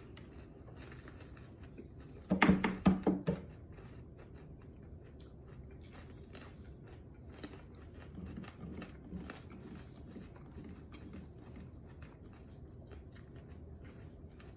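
Two people chewing fresh raw jalapeño peppers: soft, crunching mouth sounds throughout. About two seconds in, a short, loud vocal burst comes in several quick pulses.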